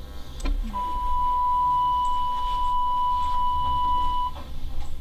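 A single steady, high electronic beep, one unchanging tone, starts about a second in and holds for about three and a half seconds before cutting off, over a low background hum.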